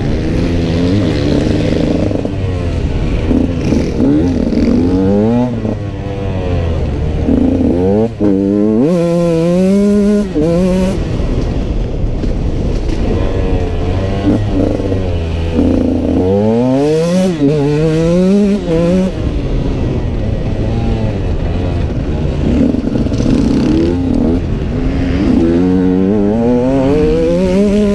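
2016 Husqvarna TE 125's two-stroke single-cylinder engine revving hard under a rider, its pitch climbing in steps through the gears and falling away between runs, over and over.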